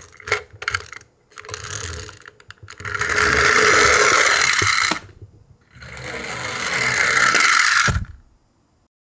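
Toy garbage truck's wind-up gear motor: rapid clicking as it is pushed back against the floor, then a loud whirring of the gears as it runs across the floor. It whirs in two runs of about two seconds each, the second stopping abruptly about eight seconds in.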